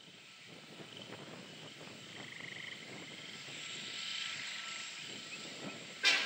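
Union Pacific diesel freight locomotives approaching, their engines and the train growing steadily louder, with short trilling animal calls in the background. A sudden loud burst comes near the end.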